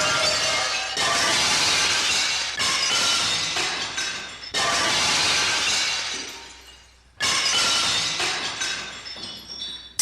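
Glass breaking again and again: a smash already ringing out at the start, then four more sudden smashes, about a second, two and a half, four and a half and seven seconds in. After each, the shards tinkle and fade.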